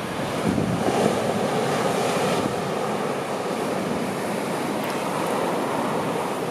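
Sea surf breaking and washing up a sandy beach: a steady rushing noise.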